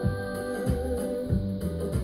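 Background music: a guitar-backed song with a steady bass line.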